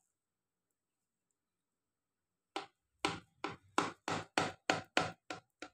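Knife cutting through caramel-glazed French toast on a ceramic dish: a quick run of about a dozen short strokes, roughly three a second, starting about halfway through.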